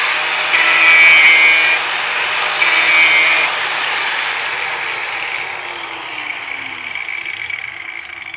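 Angle grinder cutting metal in two short passes of about a second each, the disc biting in with a harsh high ring. After that the grinder runs on without load and winds down, its pitch falling and the sound fading gradually.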